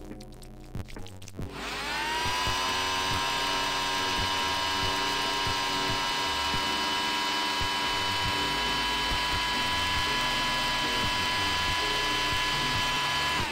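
Electric nail drill (e-file) starting up about a second and a half in, its whine rising quickly in pitch. It then runs at a steady high whine and stops abruptly near the end.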